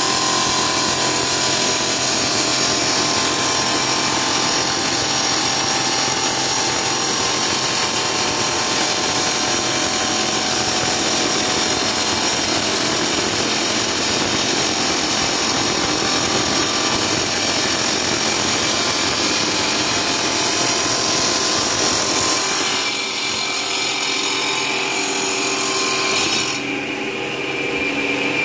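CNC cutting machine running and cutting, a loud steady noise with several steady tones in it. About 23 seconds in it gets quieter, and around 26 seconds the high part of the sound drops away.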